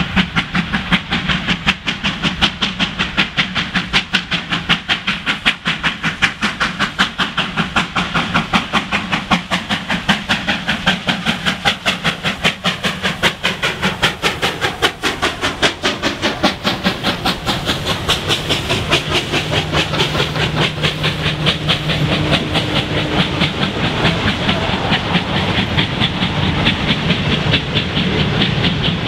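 Two R class Hudson steam locomotives, R711 and R761, working hard past the line at speed with a fast, even beat of exhaust. The beat fades about halfway through as the carriages roll by, their wheels clattering on the rails.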